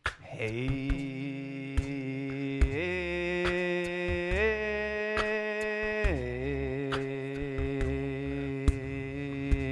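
Voices toning together on one long held note that steps up in pitch twice and then drops back down about six seconds in, before holding steady again. Scattered sharp taps sound through it.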